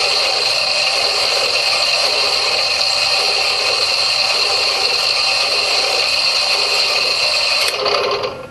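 Loud steady hiss with a few constant high whining tones through it, cutting off suddenly near the end.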